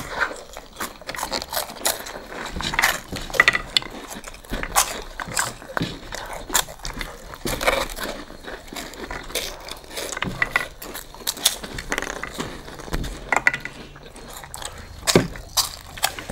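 Several people eating from plates with their mouths alone, hands off: a run of irregular wet smacks, clicks and chewing noises with no steady rhythm.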